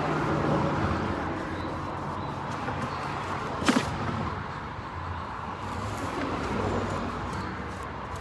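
Steady outdoor background noise with a low hum, and one sharp click a little under four seconds in.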